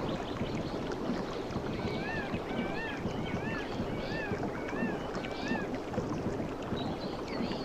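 Steady wash of ocean waves or moving water. In the middle a bird repeats a short rising-and-falling call about six times.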